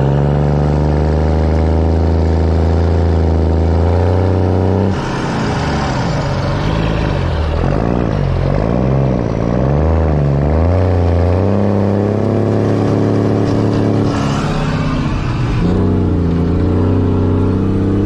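Heavy diesel farm machinery running during corn silage chopping. A steady engine drone, then for several seconds in the middle the engine pitch swings up and down over and over before settling steady again.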